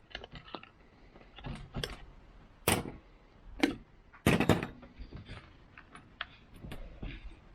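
Metal key blanks clicking and clinking as they are handled and taken out of a small rotary tumbler barrel. There are several separate knocks, the loudest about three and four and a half seconds in.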